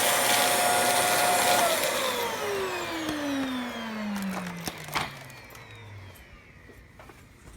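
Hoover WindTunnel3 UH72511 upright vacuum cleaner running, then switched off about two seconds in. Its motor whine falls steadily in pitch and fades as the motor spins down. There is a sharp click about five seconds in.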